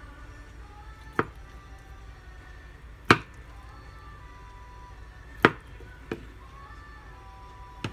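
Kitchen knife cutting down through a block of tofu and knocking on a plastic cutting board: a few sharp chops, roughly two seconds apart, over quiet background music.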